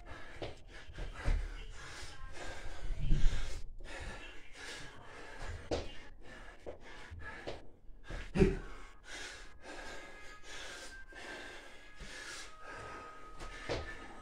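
A man panting hard in quick, short breaths while doing Navy SEAL burpees near the end of a set of 100, with two louder thumps of his body or feet on the floor about three seconds and eight and a half seconds in.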